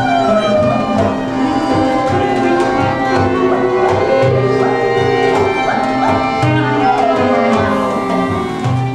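Balkan-style folk band playing an upbeat tune: fiddle and other melody instruments with sliding lines over a steady hand-drum beat.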